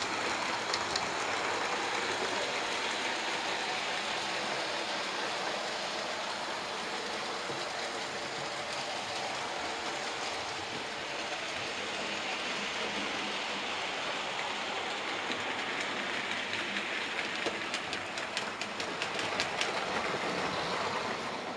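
OO gauge model trains running on the layout's track: a steady rumble of wheels on rail with clicks as they run over the joints, with more clicks near the start and towards the end as trains pass close.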